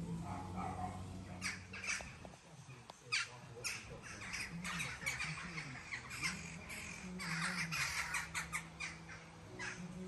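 Crows circling overhead, giving repeated harsh caws that start a second or so in and come more often in the second half.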